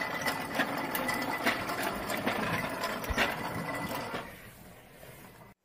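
Battery-powered toy car's small electric motor and plastic gears whirring as it drives over a tile floor, with a run of rattling clicks. It turns quieter after about four seconds and cuts off abruptly just before the end.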